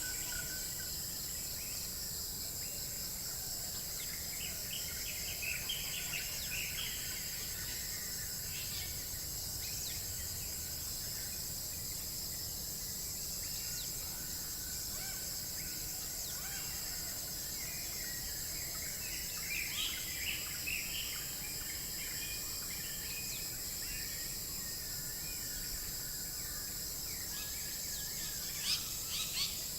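Outdoor ambience: a steady high insect drone with bursts of bird chirps, over a low rumble of background noise.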